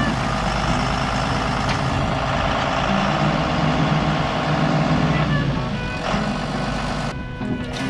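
A heavy vehicle engine running steadily, with a steady whine over it. The sound changes abruptly about seven seconds in.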